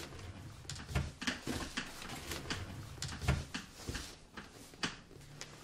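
Irregular knocks and clatter of someone rummaging through kitchen cabinets and drawers, doors and drawers bumping open and shut.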